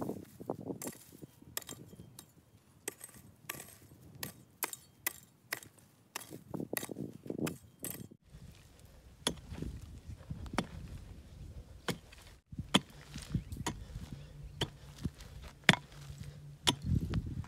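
Hand hoe chopping into dry, dusty soil: repeated sharp strikes, two to three a second, as the earth is dug into planting basins.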